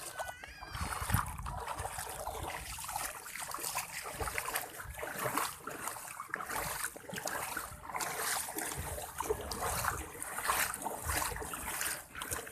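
Shallow seawater splashing and trickling under uneven wading steps over rocks.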